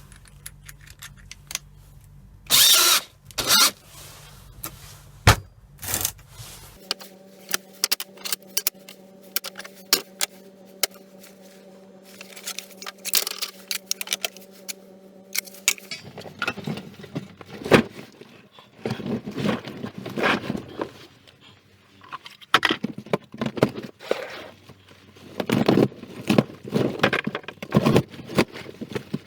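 Irregular clicks, snaps and metallic clinks of scrap plugs being broken apart and handled with hand tools to free their brass, coming thicker in the second half.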